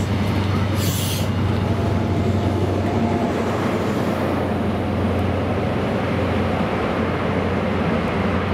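CrossCountry HST passing at speed: a steady heavy drone of a class 43 power car's diesel engine over the rumble of wheels on rail. A brief hiss about a second in.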